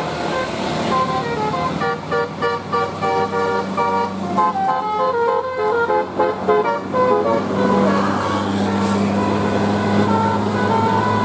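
Bus telolet horn, a set of musical multi-tone horns on a bus, playing a quick tune of short stepped notes that gives way to longer held tones near the end, over the bus engine running steadily.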